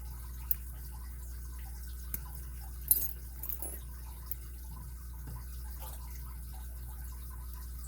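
Faint metallic ticks and scrapes of a lock pick working the pins in a Kryptonite padlock's six-pin core, with a sharper click about three seconds in, over a steady low hum.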